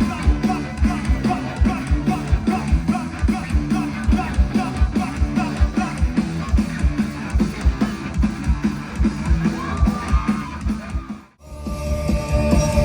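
Rock music with a steady drum beat, guitar and singing. It drops out briefly about eleven seconds in, then comes back fuller and louder.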